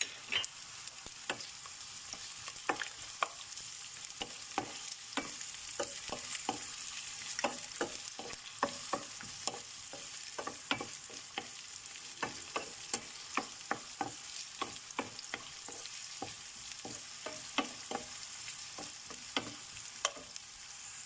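Garlic and onion sizzling in hot oil in a pan, stirred with a steady hiss and many irregular clicks and scrapes of the stirring utensil against the pan.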